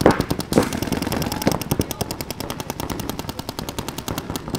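Paintball markers firing rapid streams of shots, about a dozen pops a second, with several louder pops in the first second and a half.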